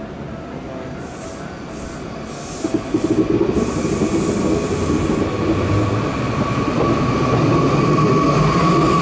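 Hankyu 2300 series electric train pulling away from a platform: a few short hisses of air, then, about three seconds in, the train starting off, with the traction motor whine growing louder over the rumble of the wheels as it gathers speed.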